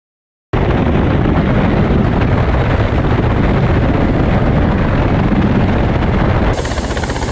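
Ka-52 attack helicopter in low flight: a loud, steady, dense low rumble of rotors and engines that starts abruptly about half a second in. Near the end the sound turns brighter, with a rapid, even beat of the rotor blades.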